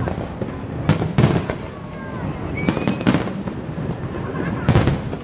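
Aerial fireworks bursting in a series of sharp bangs, several a few seconds apart. A rising whistle comes just before the bangs about three seconds in.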